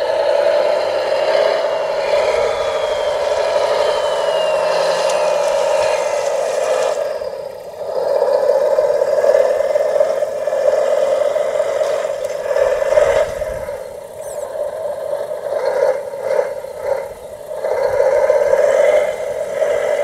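Radio-controlled scale model Volvo wheel loader giving off a steady motor whine as it drives and raises a bucket of stones. The whine dips briefly about seven and a half and fourteen seconds in, then rises and falls unevenly.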